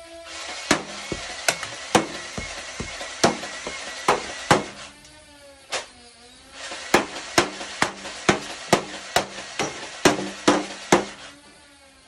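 Nerf Ultra Select motorized flywheel blaster whirring while it fires foam darts, each shot a sharp click, about two a second. It fires in two bursts, with a pause about five seconds in where the motor whine dips and climbs back up.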